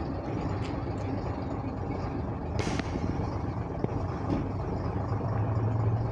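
Bus engine running with a steady low rumble. A short hiss of air comes about two and a half seconds in, and the engine hum grows louder near the end.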